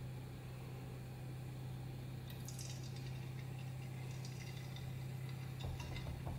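Faint sizzling and crackling from a drop of batter landing in hot frying oil about two seconds in: the oil is hot enough for deep-frying. A steady low hum runs underneath.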